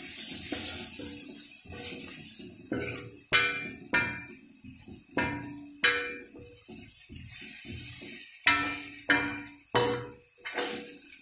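A metal spoon stirring a thick spiced vegetable mix in a metal kadhai, scraping around the pan with repeated sharp clinks that ring briefly as the spoon strikes the side.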